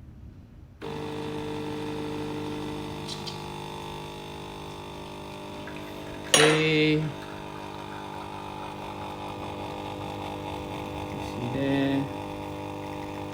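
De'Longhi Dedica espresso machine's pump starting suddenly about a second in and running with a steady hum as it pulls a double shot. A sharp click and a short, loud tone come about six seconds in, with another short tone near the end.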